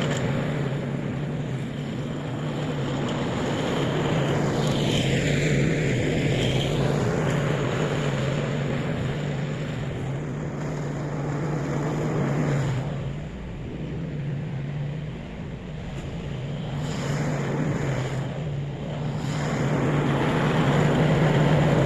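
Riding lawn mower's engine running steadily under load while cutting grass, with a constant low hum that dips a little in level partway through.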